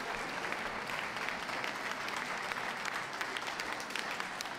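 Ringside audience applauding steadily: a dense, even patter of hand clapping.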